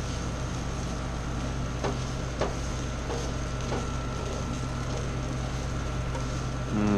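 Steady mechanical hum of a kitchen appliance fan with a constant high tone, and a few light clicks and knocks of cooking utensils about two seconds in.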